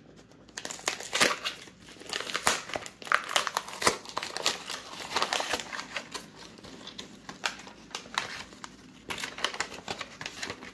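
Paper wrapping being torn open and crumpled by hand around a paperback book: a run of irregular tearing and crinkling rustles, busiest in the first half and again near the end.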